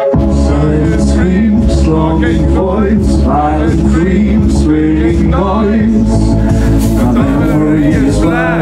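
Loud live synthwave music: deep synth bass and drums under a male lead vocal.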